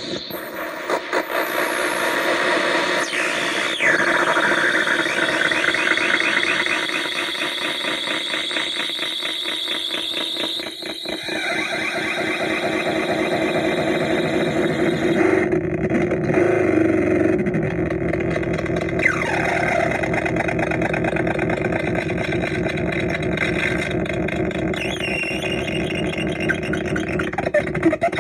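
Psychic Temple Transmitter, a handmade Atari Punk Console–style touch noise synth with built-in echo/delay, played by fingers on its metal contact studs. It gives squealing, warbling electronic tones with a fast pulsing texture that change abruptly as the fingers shift, with a few falling pitch sweeps.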